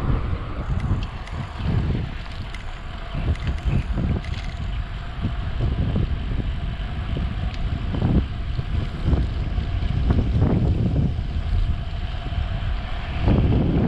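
Wind buffeting a chest-mounted GoPro's microphone while riding a bicycle, a low rumble that swells and dips in uneven gusts.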